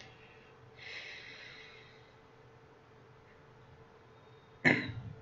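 A person's breath near the microphone: a soft exhale about a second in, then a short, sharp, louder breath noise near the end, over a faint steady hum.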